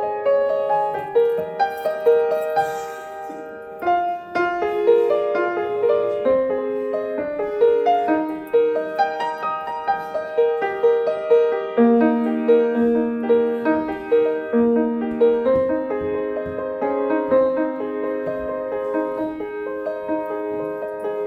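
Piano music played slowly and steadily, sustained notes moving through a gentle melody and chords.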